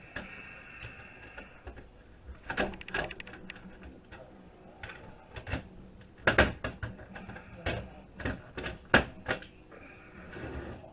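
Irregular knocks, clicks and clatter of a network switch's circuit board and metal parts being handled and worked apart on a bench, with the sharpest knocks in the second half.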